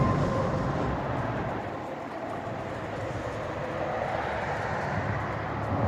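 2000 Honda Accord EX's 3.0 V6 running with a steady engine and road rumble, easing off over the first couple of seconds and building a little again toward the end.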